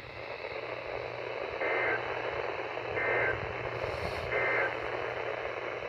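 Weather-radio receiver hissing with static, broken by three short two-tone digital data bursts a little over a second apart: the Emergency Alert System end-of-message tones that close an alert broadcast.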